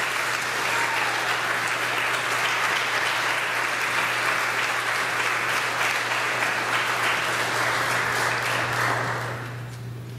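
Congregation applauding steadily, dying away near the end.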